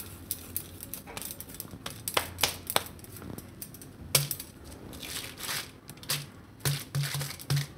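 Hands kneading soft cashew dough on a greased plastic sheet: the sheet crinkles and crackles with scattered sharp clicks, and a run of soft, evenly spaced pats comes near the end as the dough is pressed flat.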